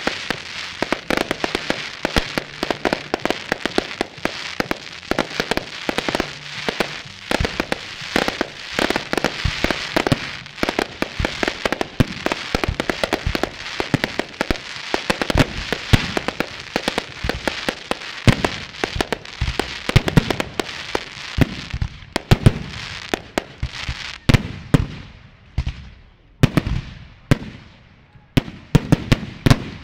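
Fireworks display's closing barrage: aerial shells bursting in rapid, overlapping bangs over continuous crackling. After about twenty seconds it thins into separate bangs, each with an echoing tail, and it dies away near the end.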